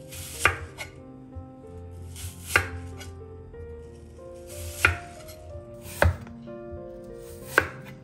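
Chef's knife slicing through green apple and striking a wooden cutting board: five sharp knocks, unevenly spaced one to two seconds apart, each led in by a brief crisp cut through the apple. Soft background music plays underneath.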